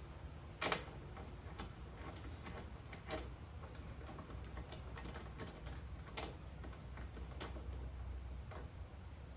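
Light, irregular metal clicks and ticks from hand tools fitting a new spark plug into a lawnmower engine, with a few sharper knocks: the loudest less than a second in, the others around three, six and seven and a half seconds.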